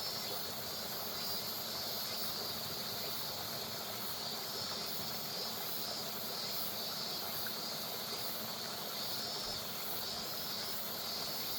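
River water flowing steadily, with a chorus of cicadas shrilling over it in waves that swell and fade every second or two.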